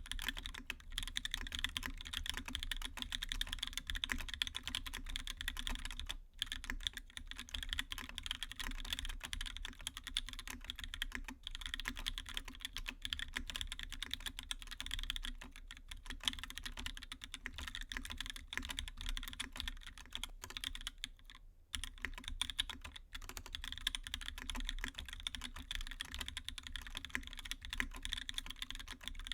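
Steady, fast typing on a Duck Octagon v2 mechanical keyboard with Krytox-lubed Gateron Yellow linear switches, GMK Hyperfuse keycaps and an aluminium case. The keystrokes run together, with two brief pauses about six and twenty-two seconds in.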